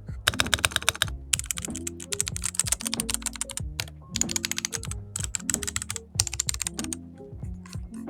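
Typing on a Redragon UCAL K673 Pro 65% keyboard: fast runs of key clicks in bursts with short pauses between them, over background music.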